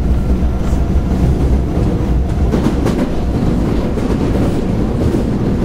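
Osaka Midosuji Line 10 series subway train running between stations, heard from inside the car: a steady low rumble with occasional clicks of the wheels over rail joints.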